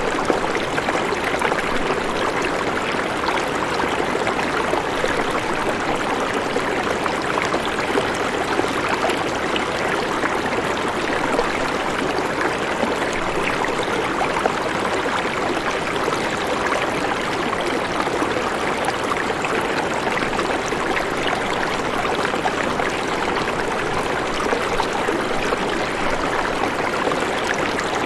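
Steady rushing and trickling water, an even noise with many fine crackling splashes.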